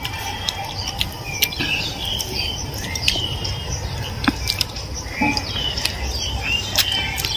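Small birds chirping in short, scattered calls, with a few sharp light clicks among them over a low steady rumble.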